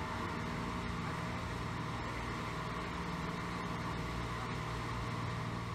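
Steady low hum of distant road traffic, a constant drone with a faint steady tone above it, unchanging throughout.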